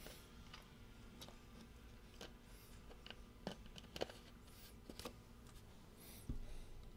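A baseball pitch popping into the catcher's mitt once near the end, the loudest sound here. Before it come a few faint scattered clicks.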